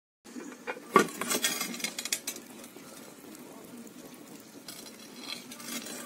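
Sharp metallic clinks and knocks, loudest about a second in, from the stove's metal firebox door and latch being handled to open it onto the burning fire. A quieter steady noise follows, with a few more clicks near the end.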